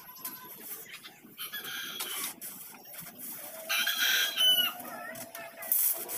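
A rooster crowing once, a long call of about two and a half seconds starting about halfway in, with a few sharp knocks around it.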